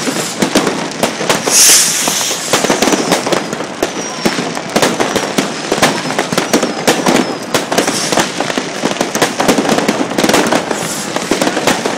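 Massed New Year fireworks and firecrackers: a dense, continuous barrage of overlapping bangs and crackling, with a few short high whistles.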